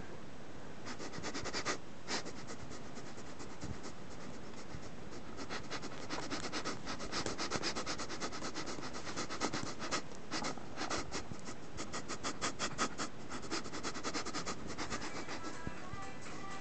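A cat's claws scratching and pawing at a fabric bedspread: a fast run of rustling scratches that gets busier a few seconds in and thins out near the end.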